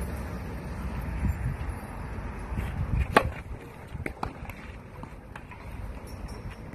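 A tennis serve: one sharp pock of the racket striking the ball about three seconds in, followed by a few fainter ball hits and bounces, over a steady low rumble of wind on the microphone.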